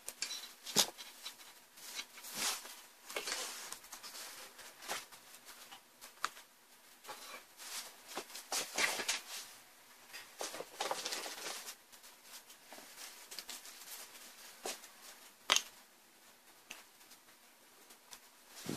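Handling noises from an LCD panel with a sheet-metal back being turned over and worked at its frame on a table: scattered clicks, taps and rustles, with a sharp click about a second in and another a few seconds before the end.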